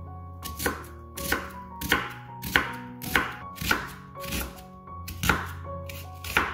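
Chef's knife slicing through a halved red onion on a wooden cutting board: about nine cuts at an even pace, one every half second or so, each ending in a knock of the blade on the wood. Soft piano music plays underneath.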